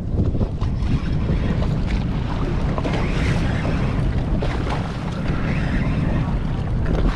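Wind buffeting the microphone over water slapping and splashing against the hull of a drifting boat on choppy sea.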